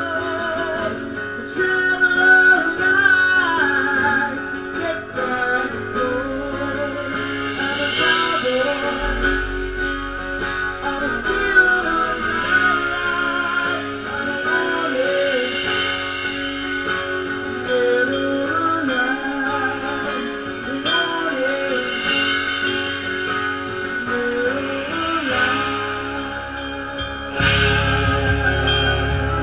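Live band playing electric guitars, bass guitar and drums, with the frontman singing into a handheld microphone. The low end gets heavier near the end.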